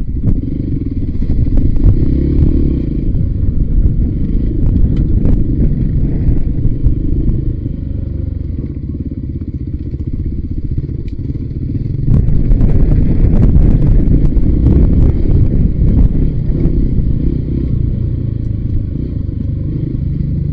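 Voge 300 Rally single-cylinder motorcycle riding down a rough dirt trail, its engine mixed with heavy wind rumble on the microphone, plus scattered clatter and knocks from stones and the bike. It gets louder for a few seconds past the middle.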